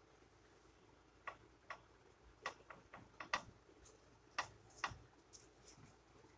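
Faint, irregular clicks and taps, about eight of them, from a gloved hand spreading chicken filling and shredded cheese over a flour tortilla in a pan.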